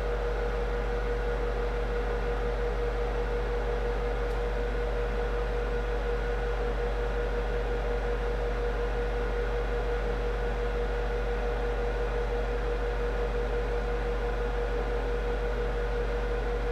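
Steady background hum and hiss with one constant mid-pitched tone, unchanging throughout, like a small running fan or electrical equipment.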